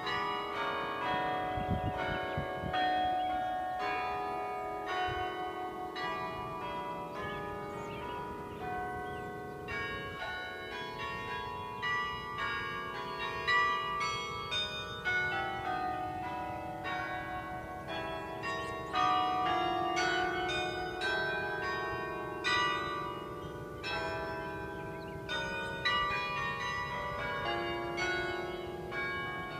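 Carillon bells being played in a tower: a melody of struck bell notes, often several sounding together, each ringing on and overlapping the next.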